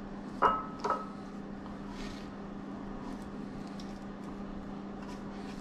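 Two quick, ringing clinks of hard kitchenware about half a second apart, then faint light ticks of handling, over a steady low hum.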